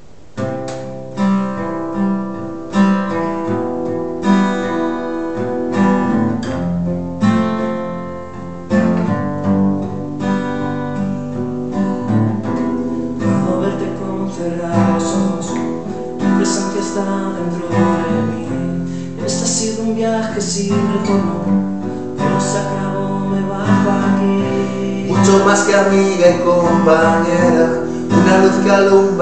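Two acoustic guitars, one of them a Takamine, playing a song's introduction together. The playing starts sharply at the outset and grows louder near the end.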